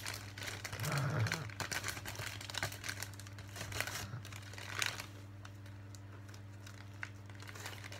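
Plastic marshmallow bag crinkling as marshmallows are taken out of it, in irregular crackles that thin out after about five seconds.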